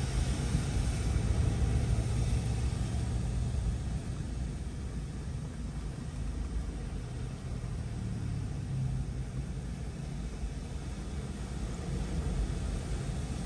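Steady low rumble of a car driving, heard from inside the cabin, a little louder in the first few seconds.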